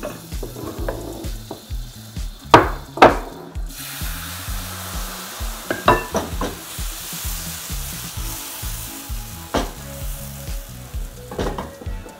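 Crepe batter sizzling in a hot non-stick frying pan on a gas flame, a steady high hiss. A few sharp knocks of kitchen utensils sound over it; the two loudest come about two and a half and three seconds in.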